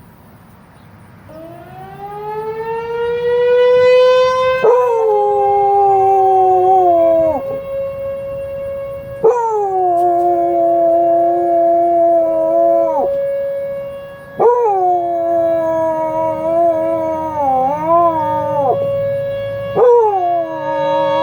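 A tornado warning siren on its routine monthly test winds up over a few seconds to a steady tone and holds it. A dog howls along with it four times, each howl a few seconds long, starting on a high note and sliding down.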